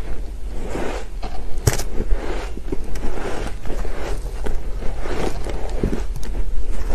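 Close-miked chewing of a mouthful of soft, powdery shaved ice, a dense crunching and squeaking, with a metal spoon scraping into the pile of ice and a few sharp clicks.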